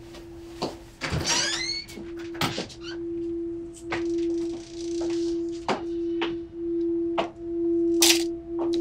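Electronic film score: a single sustained synth tone pulsing in slow swells a little under a second apart, with scattered sharp clicks and short falling chirps over it and one loud click near the end.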